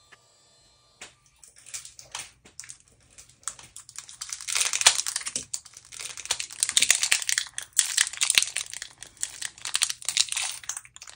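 Foil wrapper of a pack of ZINK photo paper for an HP Sprocket printer being handled and opened, a run of dense crackling and crinkling that starts about a second in and is busiest in the middle.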